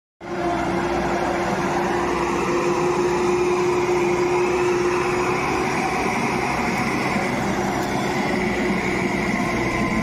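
JCB backhoe loader's diesel engine running steadily under load while its front bucket pushes and lifts heaped soil, with a steady whine that fades out about three-quarters of the way through.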